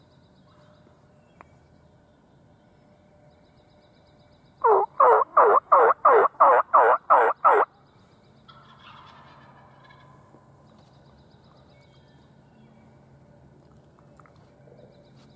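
A series of about ten loud, evenly spaced turkey yelps over about three seconds, each note dropping in pitch.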